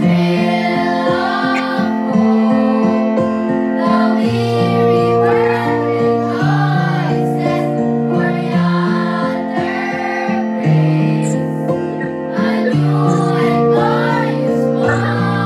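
A group of children and teenagers singing a Christmas carol in unison over an instrumental accompaniment of held chords.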